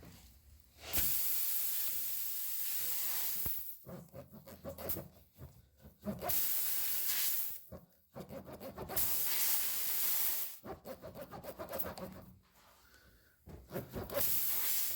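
Air hissing out of a pressurised car tire through the puncture in four loud bursts, each a second or more long. Between the bursts come quick rows of short scraping strokes from the plug tool working in the hole.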